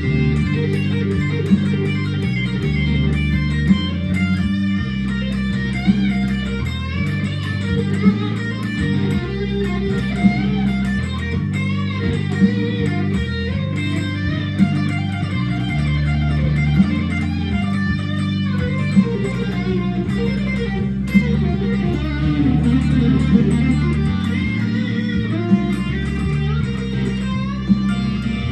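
Stratocaster-style electric guitar playing blues: melodic lead lines over sustained low notes that change every few seconds, with a sharp accent about every two seconds.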